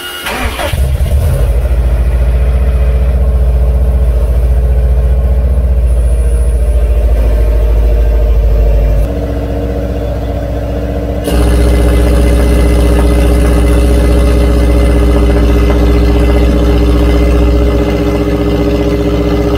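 A Subaru STI's EJ25 turbocharged 2.5-litre flat-four starts up and runs steadily, exhausting through an open electric exhaust cutout. About nine seconds in it turns quieter and duller for about two seconds, then comes back loud. The cutout will not close while the engine is running.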